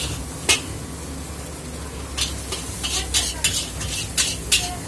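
Metal ladle clacking and scraping against a wok as fried rice is tossed and stirred over high heat, with sizzling food. The irregular clacks come loudest around the second half, over a steady low rumble.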